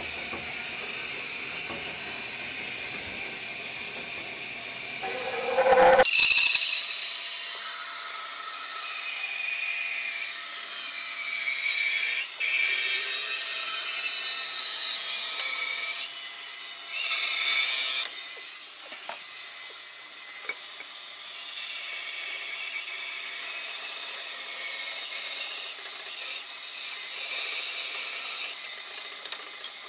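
Bandsaw blade cutting lengthwise through a thick block of walnut, a steady sawing noise. It gets louder for a moment about five seconds in and changes abruptly about six seconds in.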